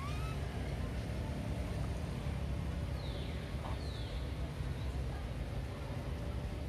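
Wind buffeting the microphone, a steady low rumble, with a faint short rising chirp at the start and two faint high falling chirps about three and four seconds in.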